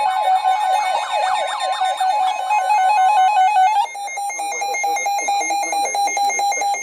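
Electronic alert tones of a NOAA Weather Radio warning: the weather radios' alarms sound a steady pulsing beep, with a warbling sweep in the first two seconds. Under them the broadcast's steady 1050 Hz warning tone stops about three and a half seconds in. The alarm is going off for a special marine warning.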